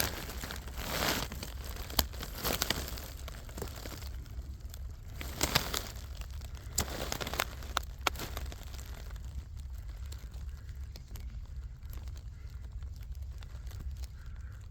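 Close rustling and crinkling of clothing and gear as a person lies on the ground, busiest in the first few seconds and then quieter. A few sharp clicks come through, over a steady low rumble.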